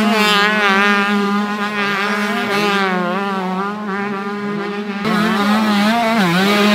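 125cc two-stroke motocross bikes running hard at high revs in deep sand, several at once, their pitch rising and dipping as the riders work the throttle and shift. About five seconds in the sound changes abruptly to a louder bike passing close.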